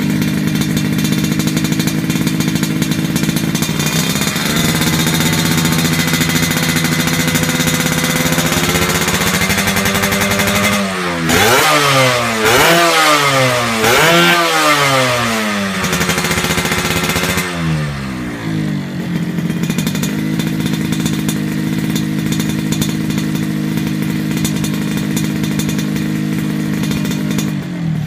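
Yamaha RX-King two-stroke single-cylinder engine breathing through an aftermarket Creampie RM-type aluminium exhaust, idling. The revs creep up, the throttle is blipped several times in quick succession near the middle, and the engine settles back to a steady idle.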